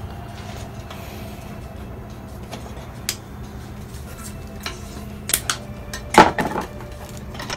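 Scattered light metallic clicks and clinks of steel switch-plate parts, screws and wires being handled on a workbench, with a louder clatter about six seconds in.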